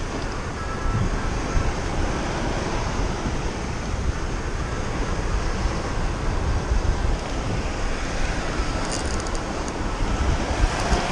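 Steady rushing noise of wind and water, with a heavy low rumble.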